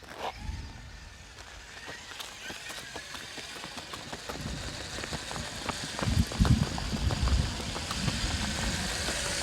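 Traxxas X-Maxx RC monster truck's brushless electric motor whining higher as it speeds up, with tyre noise on pavement. Several heavy thumps come about six to seven seconds in.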